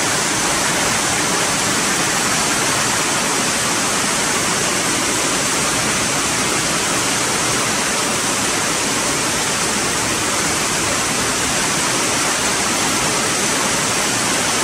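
Heavy rain falling steadily, a loud, even rushing hiss.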